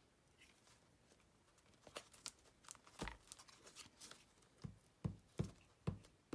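Faint paper-and-glue-stick handling: small clicks and taps, then a run of about five soft thumps roughly half a second apart as fingers press a glued paper scrap down onto a book page.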